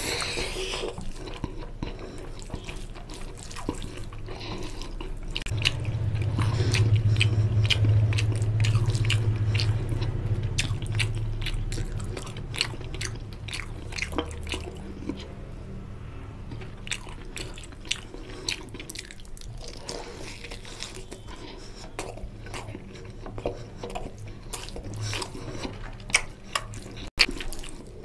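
Close-miked wet chewing and lip smacking while eating rice and mutton curry by hand, with many small wet clicks and squelches of curry-soaked rice being mixed and lifted by the fingers. A steady low hum sounds from about six to twelve seconds in.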